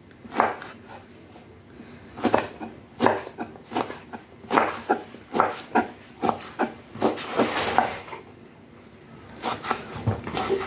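Kitchen knife dicing eggplant on a wooden cutting board: a run of sharp knocks as the blade cuts through and strikes the board, about two or three a second, pausing briefly before a few more near the end.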